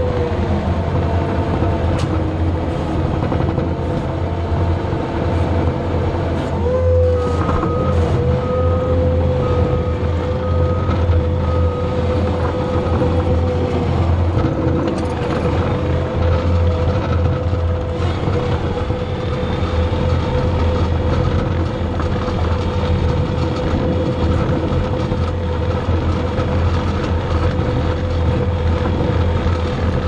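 Skid steer's diesel engine running steadily under load as it pulls a scraper pan, with a steady whine over the engine drone. A backup alarm beeps about once a second for several seconds, starting about a quarter of the way in.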